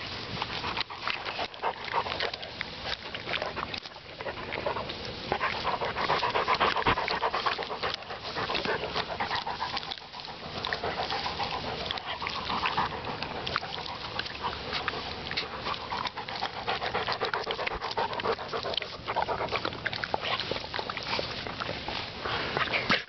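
A dog panting heavily and continuously, in long swelling and fading waves, over the crackly rustle of dry grass as a Weimaraner rolls on her back.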